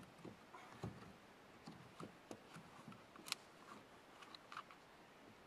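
Faint scattered clicks and light knocks of hands working the tie-down straps of a kayak on a car roof rack, with one sharper click about three seconds in.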